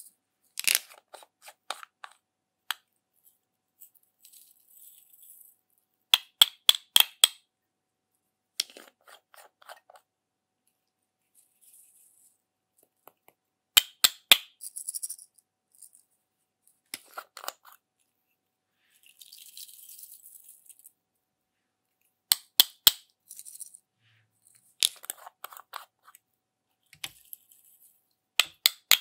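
Small plastic toy containers handled and opened: quick runs of three or four sharp plastic clicks every few seconds. Between them come soft, high, hissy patters as glitter and sprinkles are shaken out into glass dishes.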